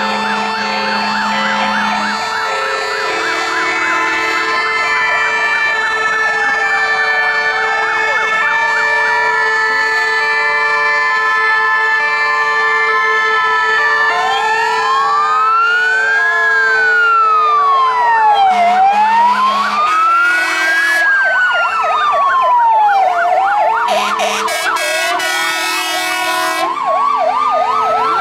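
Sirens of several fire engines sounding at once as a convoy approaches: overlapping fast yelps and slower wails. About halfway in, one loud wail takes over, rising and falling about every two seconds.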